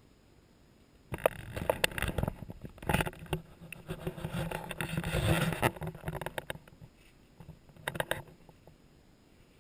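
Rustling and crinkling with many sharp knocks and clicks. A long spell starts about a second in, and a short burst comes near the end.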